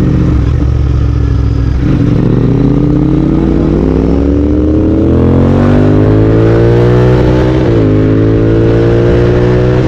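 Royal Enfield Continental GT 650's parallel-twin engine through a Red Rooster aftermarket exhaust, heard onboard under acceleration. After a brief dip about two seconds in, the engine note climbs steadily for several seconds, falls sharply at a gear change near the end, then starts climbing again.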